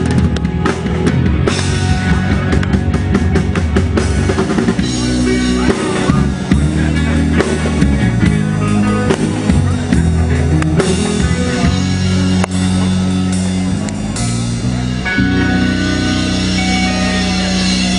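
Rock band playing live on drum kit and electric guitars in an instrumental passage, with no singing. A quick run of drum hits in the first couple of seconds, then long held chords in the second half.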